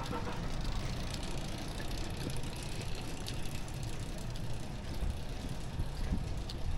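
City street ambience: a steady rumble of traffic, with faint scattered ticks over it.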